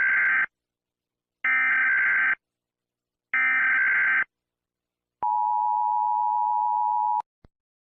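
Emergency Alert System tones. Three short bursts of digital data tones (the SAME header), each about a second long and about a second apart, are followed by the two-tone attention signal, held steady for about two seconds before it cuts off abruptly.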